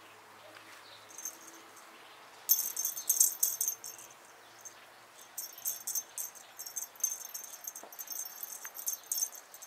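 A feathered cat wand toy jingling as it is jiggled on its string, in quick shaken runs: a loud burst about two and a half seconds in, then a longer, broken run through the last four seconds.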